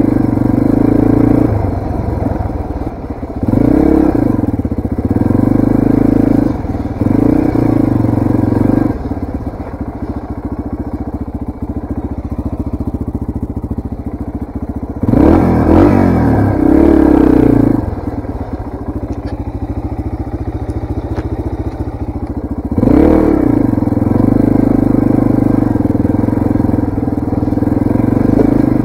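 Yamaha TTR230 dirt bike's air-cooled four-stroke single-cylinder engine, heard from the rider's seat, revving up and easing off again and again as the bike is ridden. Several quick throttle blips rise and fall, with a quieter stretch at low revs through the middle.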